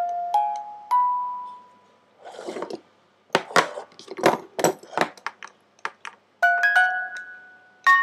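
Small hand-crank music box movement plinking a few ringing notes from its metal comb, then stopping. A short rustle and a run of sharp metallic clicks and knocks follow as the movements and crank are handled, and the music box notes start again near the end.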